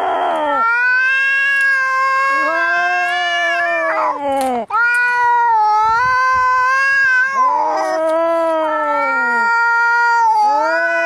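Angry cats caterwauling as in a cat fight: long, drawn-out yowls that waver in pitch, three in a row, with a brief hiss at the start.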